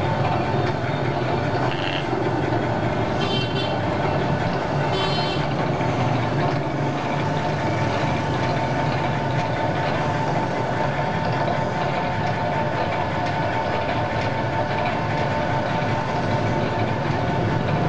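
Pork-skin shredding machine running steadily: its 1 HP electric motor hums and the steel rollers and blades turn with a continuous mechanical whir. Brief high squeaks come a few seconds in.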